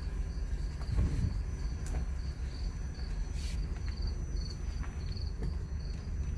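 2014 Mazda 6 (GJ) on the move: a steady low road rumble with scattered sharp knocks, and a high short squeak repeating about three times a second. These are the unexplained knock and squeak the owner is trying to trace.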